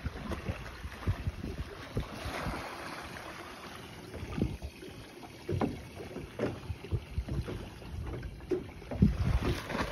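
Sea water lapping and slapping irregularly against the hull of a small boat drifting on a light swell, with a few louder slaps near the end and wind buffeting the microphone.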